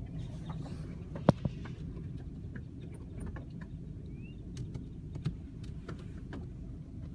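Steady low rumble of a car, with irregular sharp taps and clicks (a loud one about a second in) and a few short chirps from a flock of blackbirds.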